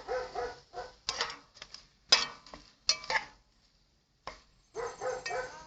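Metal utensil clinking and scraping against a cooking pot as food is stirred, with several sharp clinks, the loudest about two and three seconds in.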